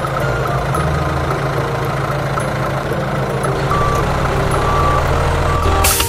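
Heavy vehicle engine running steadily, with a few short high beeps in the second half, like a truck's reversing alarm.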